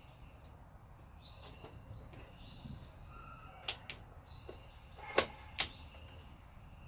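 Three sharp plastic clicks, about three and a half, five and five and a half seconds in: the car's plastic trim push clips being pressed into place. Faint bird chirps in the background.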